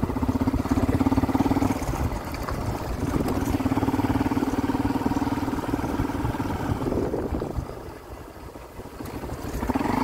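Motorcycle engine running steadily while riding along a dirt road. It quietens for a couple of seconds near the end, then picks up again.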